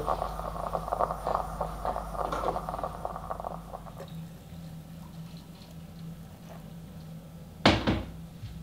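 Stovetop moka pot gurgling and sputtering as the coffee comes through, stopping about halfway through. Near the end, a single loud clunk as the metal pot is set back down on the hob.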